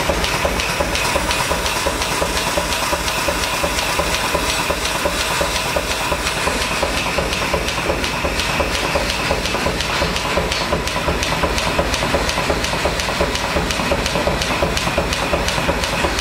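Forge power hammer running with a fast, even chugging rhythm of several beats a second, with a low rumble and a hiss under it.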